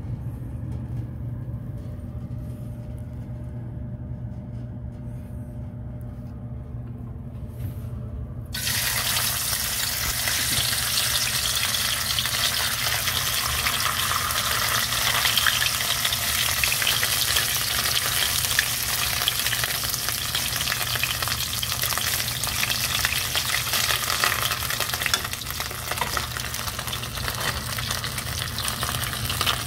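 Hot oil in a deep-frying pan bursts into a dense, steady sizzle about eight seconds in, as a red piece of hōseki-kintoki (bigeye fish) skin goes in to deep-fry plain, and keeps sizzling as it is turned with chopsticks. Before that there is only a low steady hum.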